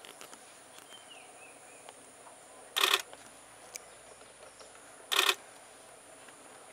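Two short bursts of rapid camera shutter clicks, about three seconds and five seconds in, over a steady high-pitched insect drone.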